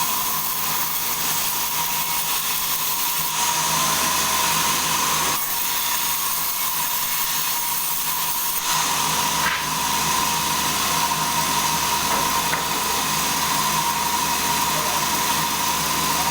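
Sawmill saw running steadily through a log. A constant whine sits over a low machine hum, with no pauses.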